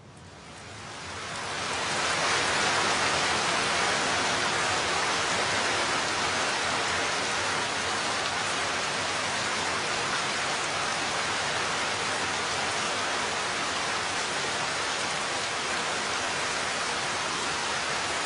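Steady rain, a dense even hiss, fading in over about the first two seconds and then holding steady.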